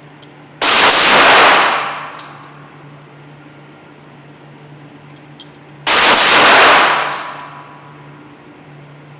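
Pistol fired in two double taps about five seconds apart, each pair of shots coming so close together that they merge into one loud report with a trailing echo. A few faint metallic pings follow each pair.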